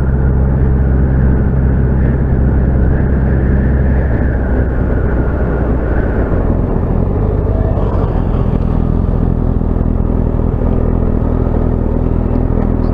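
Motorcycle engine running while riding, with wind noise over it; the engine note drops a few seconds in.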